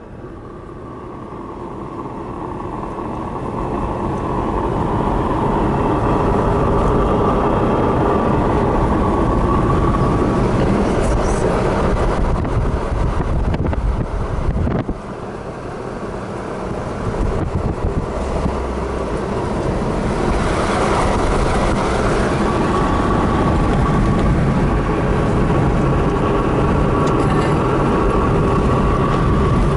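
Steady road and wind noise heard from inside a moving car with a window open: a rush of tyres and air that grows louder over the first several seconds, dips briefly about halfway through, then holds steady.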